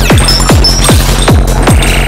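Eurorack modular synthesizer playing a glitchy noise-techno pattern: a pitch-dropping kick drum about three times a second over a steady low drone, with noisy crackle and short high blips.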